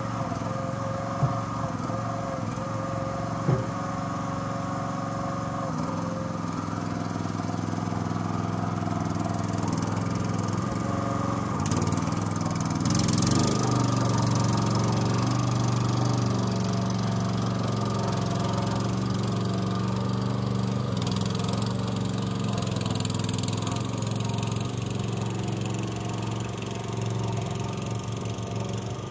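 Small engine of a FORT Alien HY 5.2 tracked dumper running steadily under load as it is driven through deep mud. It gets louder partway through and fades near the end as the machine moves away, with a couple of sharp clicks in the first few seconds.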